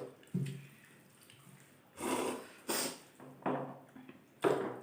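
Close-up eating noises: about five short, breathy mouth sounds, sniffs and slurps, with quiet gaps between them.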